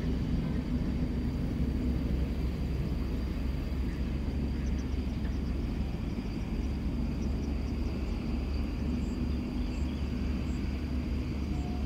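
Steady low rumble of a Boeing 777-200ER's jet engines as it lands and rolls out on the runway, with a faint steady high whine above it.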